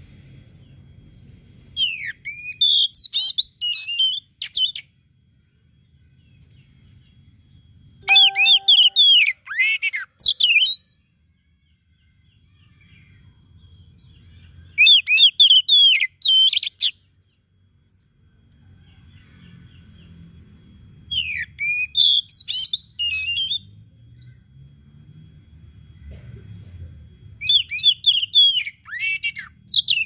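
Male Oriental magpie-robin singing in five rapid phrases of varied whistled and gliding notes, each two to three seconds long, with pauses of a few seconds between them.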